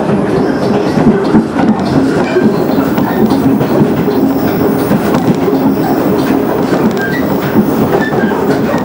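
Running noise heard from inside a KiHa 110 series diesel railcar travelling at speed: the diesel engine's steady drone mixed with the wheels rolling on the rails, at an even level throughout.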